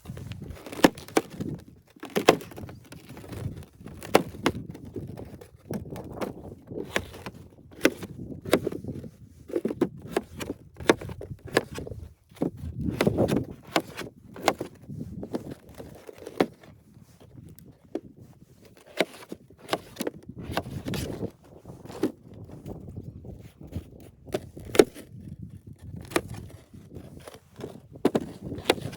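Irregular knocks, clicks and crunches, coming in uneven clusters, with no steady rhythm.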